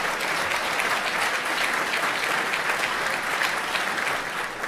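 Large audience applauding steadily, easing off near the end.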